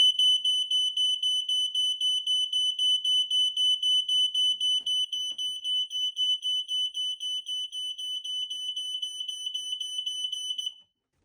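Smoke alarm sounding on test after its test button is pressed: one loud, high-pitched piezo tone that pulses several times a second, then cuts off suddenly near the end.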